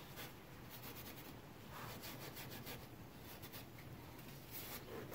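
Faint scrubbing of an abrasive scouring pad rubbing on the edge of a control arm's metal bushing bore, in short repeated strokes, cleaning the bore before a new bushing goes in.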